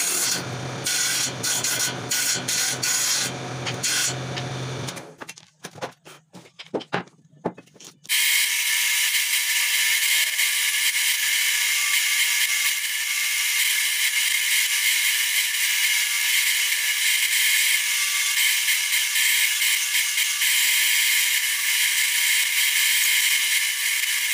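A power saw with a sliding sled cuts a small wooden piece, its motor humming under the choppy cutting noise. After a short, quieter pause, a homemade disc sander runs steadily with a thin whine as a small piece of wood is pressed against the spinning disc.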